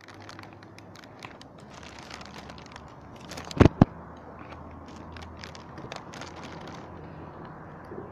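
Handling noise from the camera being moved: scattered crackles and rubbing on the microphone, with two sharp knocks about three and a half seconds in, over a low steady rumble.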